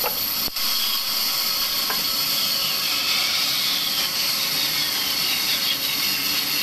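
Large band saw cutting lengthwise through a dry log: a steady hissing rasp of the blade running through the wood.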